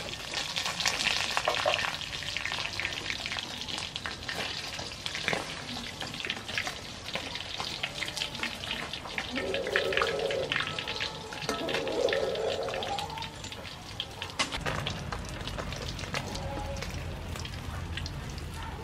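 Fish pieces frying in hot oil in a wok, crackling and spitting with many small pops, while a metal spatula scrapes and turns them. Two brief pitched sounds cut through the frying near the middle.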